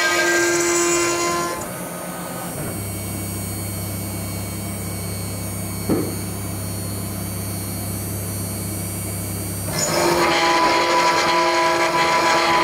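Mechmate CNC router spindle milling S355MC steel plate with a small endmill: a loud cutting sound with several steady high tones. About two seconds in it drops to a quieter, steady low hum with a single click near the middle, and the loud cutting with its tones returns about ten seconds in.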